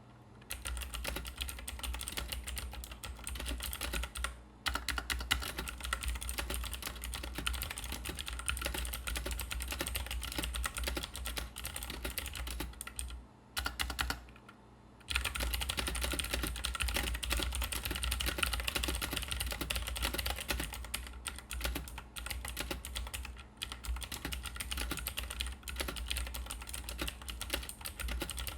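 Continuous fast typing on a UHURU UMK-100 mechanical keyboard with clicky Jixian blue switches and ABS keycaps: a dense stream of keystroke clicks. There is a brief pause about four seconds in and a longer pause of about two seconds near the middle.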